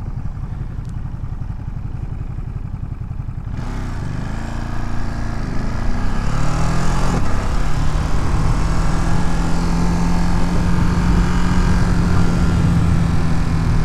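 Ducati Monster's L-twin engine idling, then pulling away about three and a half seconds in, its revs rising and falling through gear changes before settling to a steady drone under way. Wind noise rushes over the microphone once the bike is moving.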